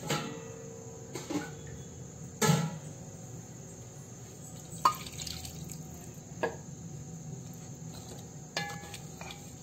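Water being poured into a metal pot of chicken curry and stirred in with a wooden spatula, with a few sharp knocks and clicks of the spatula against the pot.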